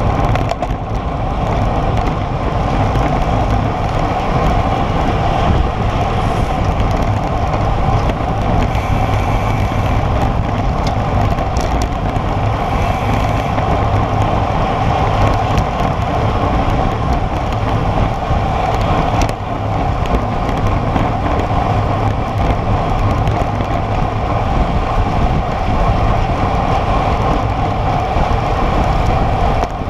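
Steady rush of wind over a bike-mounted camera's microphone, mixed with the hiss of road-bike tyres rolling on asphalt at about 40–44 km/h.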